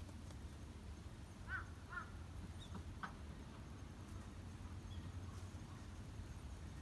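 Two short animal calls about half a second apart, over a steady low hum.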